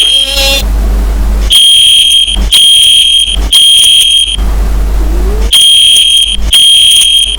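Fire alarm sounding a high-pitched beep in groups of three, each beep nearly a second long, with a pause of about a second between groups: the three-pulse evacuation signal.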